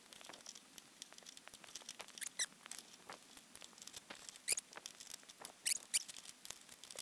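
Metal spoon scraping and clinking inside a tin can as it is scooped out: a run of quick light scratches and taps, with a few brighter, squeaky clinks.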